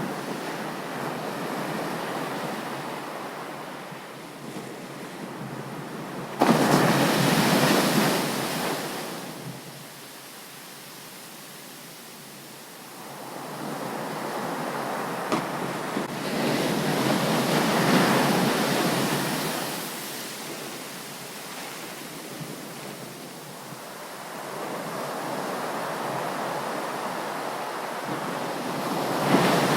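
Sea waves breaking on a beach: the surf rises and falls in slow swells, with a sudden loud crash of a wave about six seconds in, another swell in the middle and a third beginning near the end.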